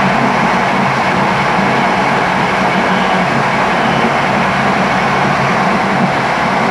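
Train running at speed along the track: a steady rolling noise of wheels on rail with a low, even hum underneath.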